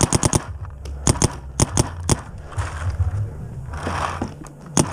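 Paintball markers firing: a rapid string of four or five shots, then more scattered shots over the next couple of seconds, a short lull, and a few more shots near the end.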